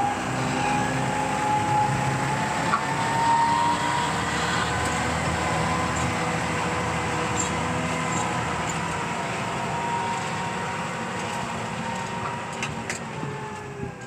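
John Deere farm tractor's diesel engine working steadily, with a high whine over the engine note that falls away as the sound fades near the end.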